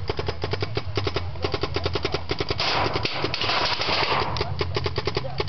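Paintball markers firing in rapid strings, about ten shots a second, with a stretch of hissing noise about two and a half seconds in that lasts around a second and a half.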